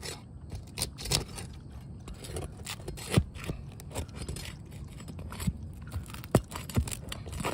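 Asphalt roof shingles being pried up: scraping, with scattered cracks and snaps as the brittle shingles tear and break. A few sharper snaps stand out about three, five and a half and six and a half seconds in.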